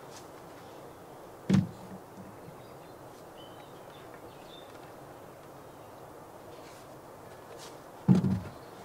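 Two dull wooden thunks about six and a half seconds apart, the second the louder: a long board knocking against and being set down on a timber deck frame.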